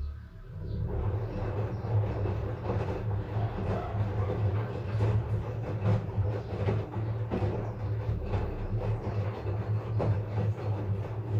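LG front-load washing machine with its drum spinning: a steady low hum from the motor and drum, with the cabinet rattling and knocking throughout. It grows louder about a second in.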